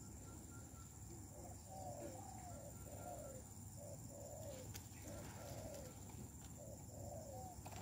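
A bird calling faintly in a series of short rising-and-falling notes, about two a second, starting about a second in.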